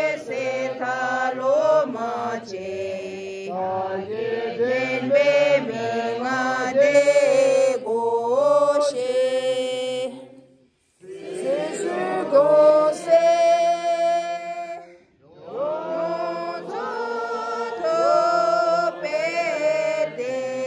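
A crowd of people chanting a prayer together in unison, a slow stepwise melody sung in long phrases that break off briefly twice, about ten and fifteen seconds in.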